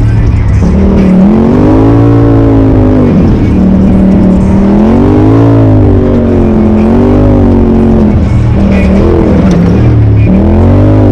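Polaris RZR Turbo side-by-side engine under load, its pitch rising and falling again and again as the throttle is worked on and off, over a steady low rumble.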